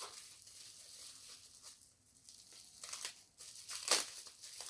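Packaging crinkling and rustling as items are handled and unwrapped, with a few sharper crackles; the loudest comes about four seconds in.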